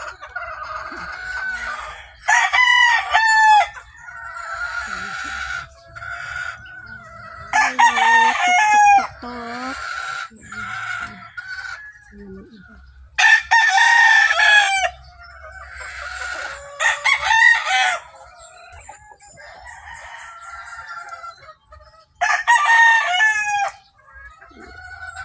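Roosters crowing again and again: five loud crows spaced a few seconds apart, with quieter clucking and calls from the flock between them.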